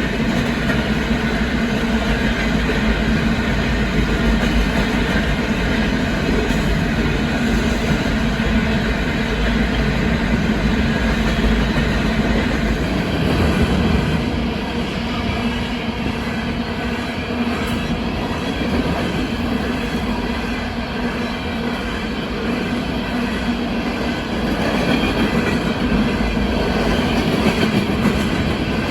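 Freight cars of a loaded rock train rolling past on steel wheels: a steady rumble with a continuous ringing tone from the wheels and rails.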